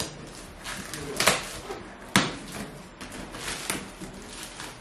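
Scissors cutting through a cardboard carton and its plastic wrapping, then cardboard and plastic being pulled open and rustled by hand, with two sharp knocks about one and two seconds in.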